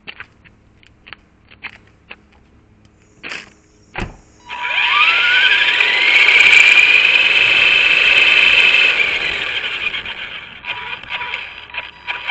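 Electric motor and drivetrain of an Arrma Typhon RC car whining as the car accelerates: the pitch rises, holds steady for a few seconds, then falls away. A few light clicks and a knock come first.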